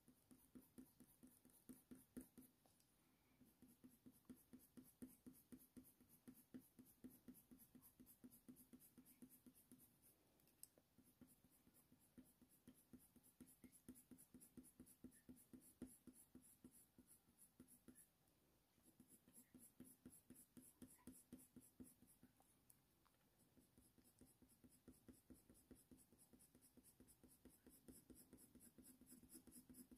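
Faint, rapid scratching of a Faber-Castell Polychromos colour pencil making short, quick fur strokes on hot-press watercolour paper, in runs broken by brief pauses.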